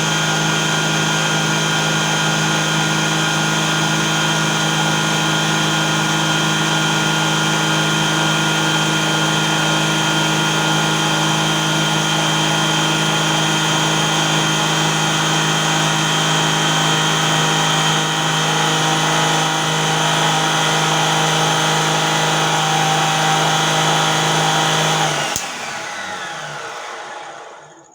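Homemade table saw driven by two 12 V 775 DC motors, running steadily at full speed with a high whine. About 25 seconds in it is switched off and spins down, the whine falling in pitch as it fades out.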